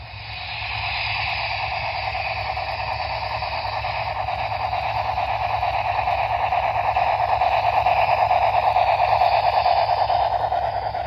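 Sound decoder of a ScaleTrains 'Big Blow' gas-turbine model locomotive playing a steady, hissing turbine sound through its small onboard speaker, growing louder as the locomotive passes close and dropping away near the end.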